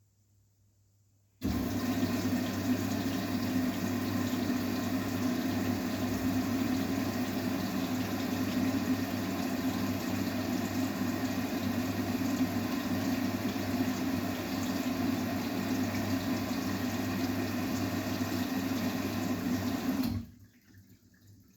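Water rushing through an Arçelik 9120M washing machine, with a steady low hum under it. It starts abruptly about a second and a half in, runs evenly, and cuts off suddenly near the end.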